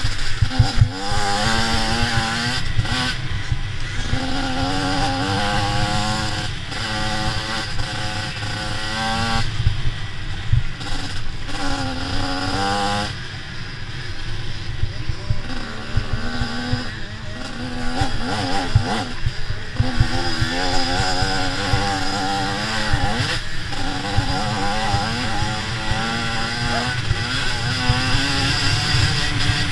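85cc two-stroke motocross bikes racing, their engines revving up and down as the riders work the throttle and shift, with pitch rising and falling throughout.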